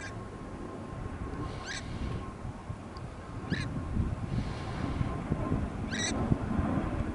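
A bird calling three times, one short call every two seconds or so, over low wind rumble on the microphone.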